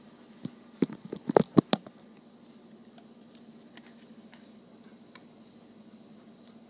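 Close handling noise from fingers rustling through a dog's thick fur right by the phone's microphone: a quick cluster of sharp clicks and rustles about a second in, then only a faint steady hum.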